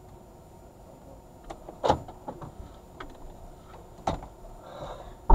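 A few sharp clicks and knocks inside a parked car's cabin, the loudest a hard click right at the end, fitting the driver's door being unlatched and opened.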